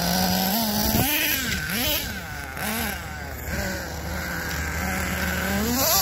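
Red Cat Earthquake 3.5 nitro RC truck's small two-stroke glow engine running with a high buzz. It is blipped up and down in quick revs about one, two and three seconds in, holds a steady note, then revs up again near the end.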